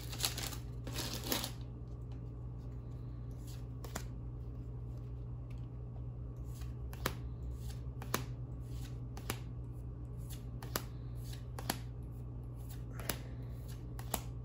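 Trading cards from a freshly opened Dragon Ball Super Card Game booster pack being flipped and slid one by one, a crisp click or snap about every second. A quick flurry of rustling comes in the first second or so.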